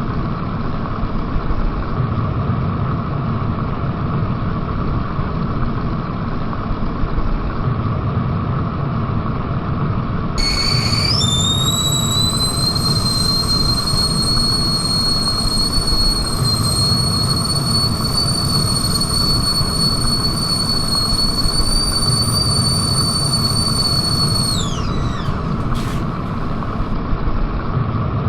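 Whistling kettle at the boil: a steady rush of boiling water, then about ten seconds in the whistle starts, jumps up in pitch and holds one high shrill tone for about thirteen seconds before sliding down and stopping. A short click follows about a second later.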